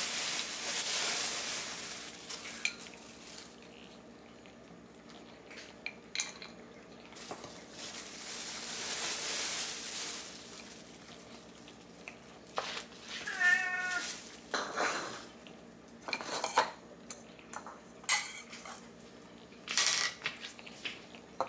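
Cat eating kibble from a ceramic bowl: scattered crunches and light clicks against the bowl, with two stretches of rustling hiss. A short wavering meow about two-thirds of the way through is the loudest sound.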